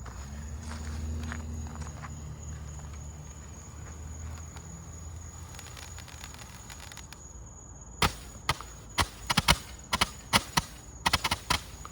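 Consumer fireworks fountain going off: a low steady hum, then from about eight seconds in a run of sharp, irregular pops and cracks, several a second.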